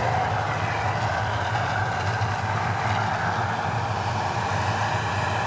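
Steady rumbling, rushing noise from a man-made casino volcano show, its lit water jets spraying as the eruption dies down.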